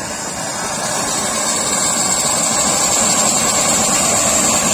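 Tubri, a clay-pot fountain firework, spraying a column of sparks with a steady jet-like rushing hiss that grows louder over the first couple of seconds, then holds.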